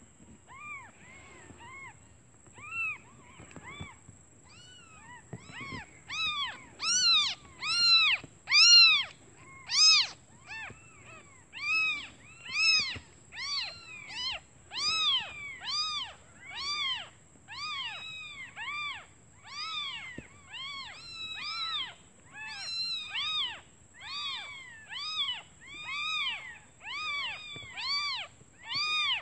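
Several newborn kittens mewing over and over, short high cries that each rise and fall in pitch, about one or two a second, faint at first and louder from about six seconds in. They are calling for their absent mother because they are hungry.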